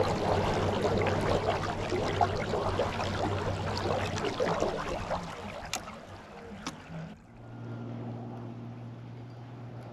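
Water rushing and splashing along a kayak's hull as it moves across a lake under an electric trolling motor, with two sharp clicks near the end of this part. About seven seconds in, the sound cuts abruptly to a much quieter steady low hum.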